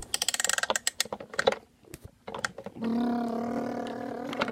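Rapid rattling clicks of small plastic toys being handled and moved, with a few more clicks after a pause. Then a voice holds one steady note for about a second and a half near the end.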